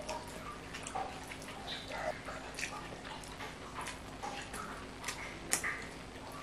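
Quiet eating sounds: scattered wet clicks and smacks from chewing and lip-smacking, and from fingers working rice on plates. The sounds come at irregular moments, with one louder smack past the middle.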